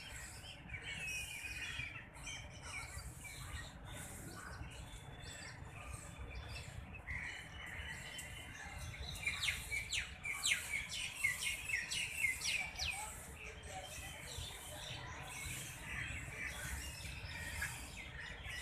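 Small birds chirping, busiest in the middle with a run of quick, downward-sweeping chirps, over a low steady rumble.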